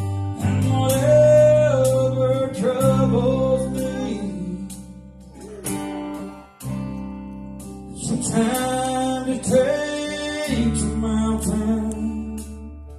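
Live church music: a man sings into a microphone while strumming an acoustic guitar, over long held keyboard chords. The singing pauses for a moment about halfway through, then picks up again.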